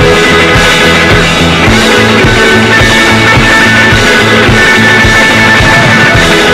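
Background rock music with distorted guitar and a steady beat of about two strokes a second.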